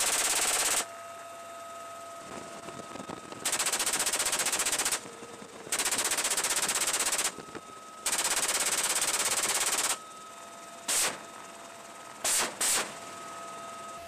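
Helicopter door-mounted machine gun firing from a UH-1Y Venom: four bursts of rapid automatic fire, each one to two seconds long, then a few short bursts near the end. The helicopter's steady hum fills the gaps between bursts.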